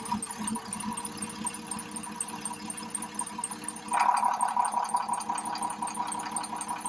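Cummins ISC six-cylinder diesel engine of a motorhome idling steadily on its first start after a radiator, coolant and transmission-cooler job. About four seconds in, the running sound gets louder and brighter.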